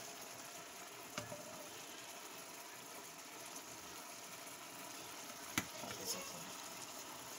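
A whole fish simmering in sauce in a frying pan, a steady soft sizzle, with two light knocks of a spatula against the pan, about a second in and again past the middle.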